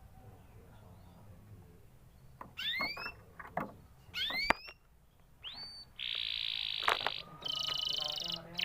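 Domestic canary singing: after a quiet first couple of seconds, two rising whistled notes and a short chirp, then two long, high buzzing trills.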